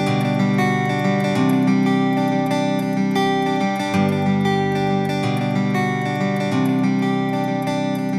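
Intro music: acoustic guitar strumming chords.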